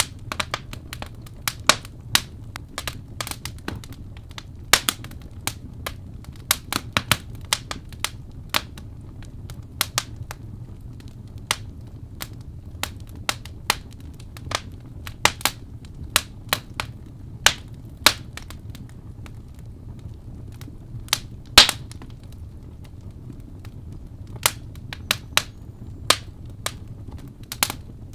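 Wood fire crackling, with sharp pops at irregular intervals over a low steady rumble; a few pops are much louder than the rest.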